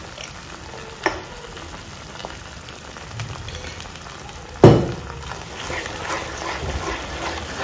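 Thick sauce with onions and capsicum sizzling in a nonstick wok as a wooden spatula stirs it. There is a small click about a second in and a loud sharp knock a little past halfway.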